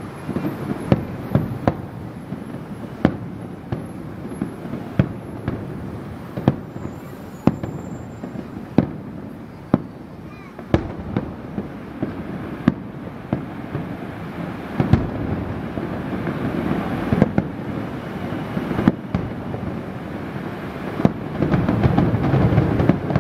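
Aerial fireworks shells bursting in steady succession, a string of sharp bangs about one a second over continuous rumbling noise from the display, which thickens and gets louder near the end.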